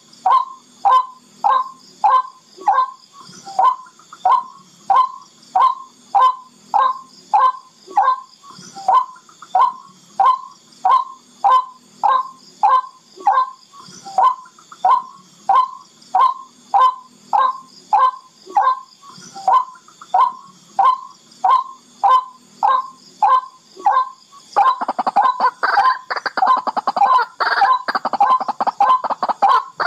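Barred rail (tikling) calling: a loud, sharp call repeated evenly about twice a second, breaking about 25 seconds in into a fast, denser chatter. The call is played to lure rails.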